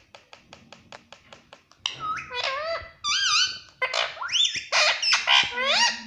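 Male rose-ringed parakeet tapping its beak on a mirror at its reflection, about six quick taps a second. From about two seconds in it gives a run of loud calls that slide up and down in pitch, the loudest part.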